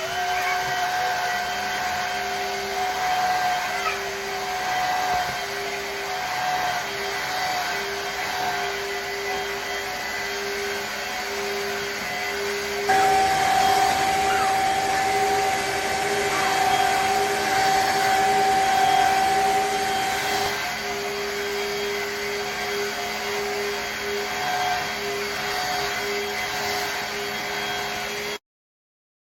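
Shark HydroVac cordless wet-dry vacuum mop running steadily with a droning hum. It gets louder and higher-pitched for about seven seconds in the middle, then settles back and cuts off suddenly near the end.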